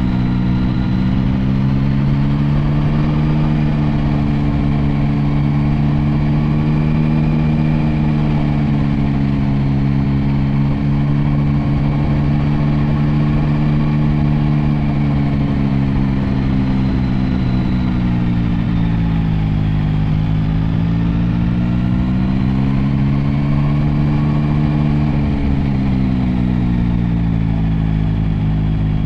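Motorcycle engine running steadily under way, heard from on board over a low rush of wind noise. Its engine speed eases down about two-thirds through and climbs back again.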